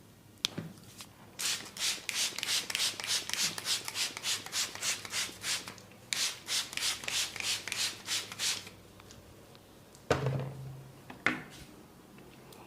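Hands rubbing briskly over skin during a head massage, in two runs of quick, even strokes about four or five a second. Two sudden thumps come near the end.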